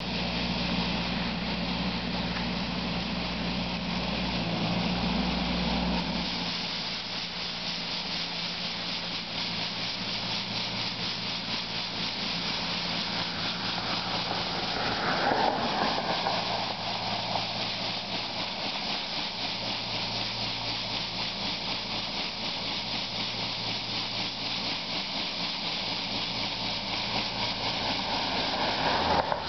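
Compact tractor's engine running under a steady hiss and rush from its front-mounted rotary brush sweeping snow off the path, with a heavier low rumble in the first few seconds and a brief swell about halfway through.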